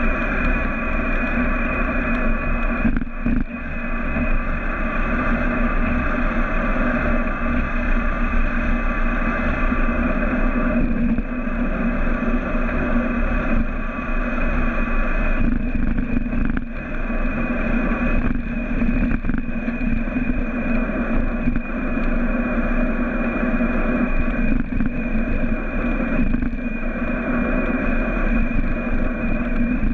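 Electric bike ridden fast at about 50 km/h in Turbo assist: a steady rush of wind and tyre noise with a steady whine from the Bosch mid-drive motor.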